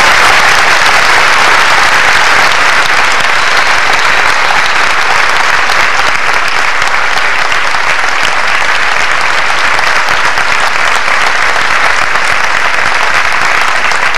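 A large audience applauding in a long, steady round of clapping that eases off slightly toward the end.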